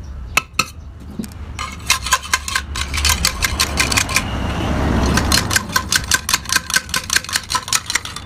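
Quick, even metal-on-metal hammer blows, about five or six a second, over a steady low hum.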